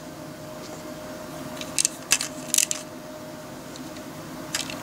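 Small plastic LEGO pieces clicking as they are handled: a few sharp clicks about two seconds in and another near the end, over a faint steady hum.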